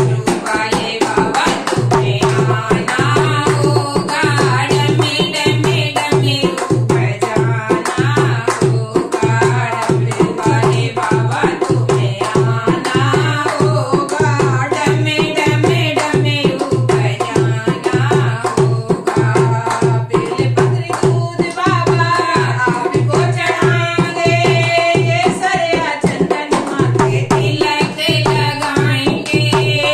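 Women singing a Hindi devotional bhajan to a steady, fast beat on a hand-played dholak barrel drum.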